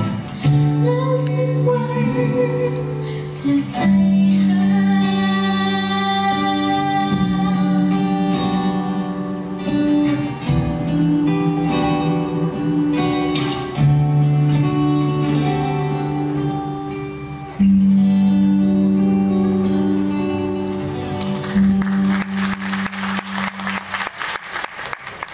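Pop-ballad backing track on the hall's sound system, with guitar and long held chords, closing out the song after the female singer's last line near the start. A rush of noise builds near the end as the music starts to fade.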